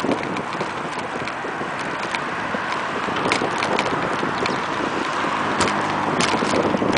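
Wind rushing over a bicycle-mounted camera's microphone while riding along a concrete path. Sharp clicks and rattles come from the bike and camera mount jolting over bumps, several of them in the second half.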